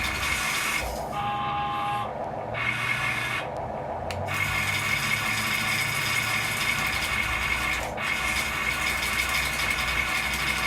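Electric motor and hydraulic pump of an RC construction machine whining as it works, stopping and starting again several times in short bursts.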